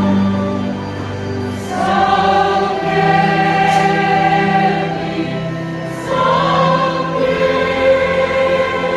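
A choir singing long held chords in church-music style, the chord changing twice, about two seconds and six seconds in.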